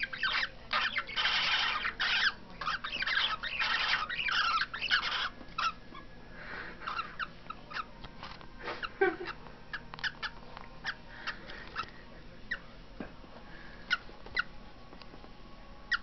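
Pet parakeet and cockatiel chattering in their cage during a mating attempt: dense scratchy chatter for about the first five seconds, then scattered short chirps and clicks.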